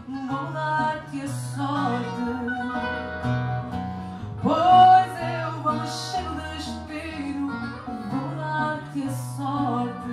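A woman singing fado with guitar accompaniment. About four and a half seconds in, her voice swoops up into a long held note, the loudest moment.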